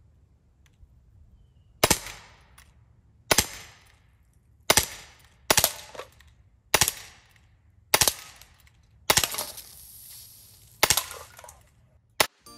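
Heckler & Koch VP9 CO2 blowback BB pistol firing eight single shots, roughly one every one to one and a half seconds. Each is a sharp crack with a short ringing tail.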